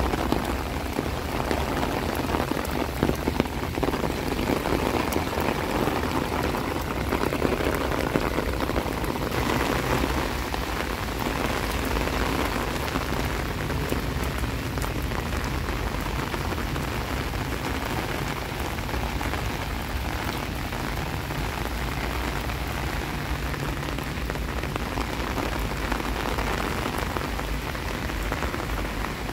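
Steady rain falling, a dense, even ticking of drops hitting surfaces.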